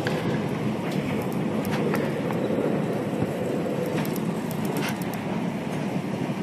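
Steady rushing of storm wind and heavy rain during a thunderstorm, with a few sharp ticks scattered through it.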